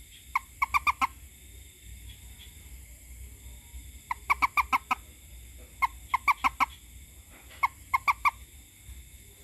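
Frog calling in short bursts of four or five quick, clucking croaks, four bursts a couple of seconds apart, over a steady high-pitched background drone.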